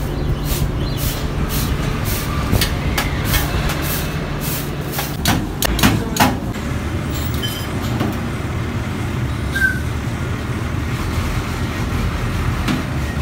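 Steady low hum of an idling vehicle engine from the street, with sharp clicks and a few louder metal clanks about five to six seconds in as a knife and tongs scrape chicken shawarma off the rotisserie cone into a steel tray.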